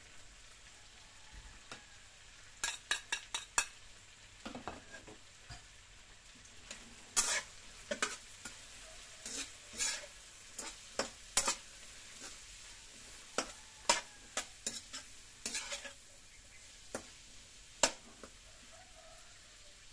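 Metal spatula stir-frying vegetables in a wok, with irregular sharp clinks and scrapes against the pan and a quick run of clinks about three seconds in. A light steady sizzle of frying lies underneath.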